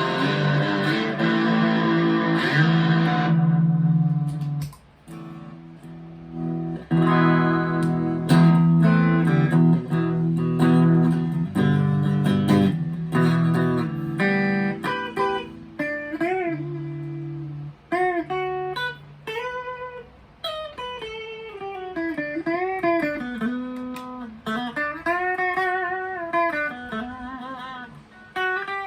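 Electric guitar, a Chapman ML3 Standard P90 through a Vox AV15 amp, played solo. It opens with ringing chords for about four seconds, moves into choppy chord-and-riff playing, and from about halfway it turns to single-note lead lines with string bends and vibrato.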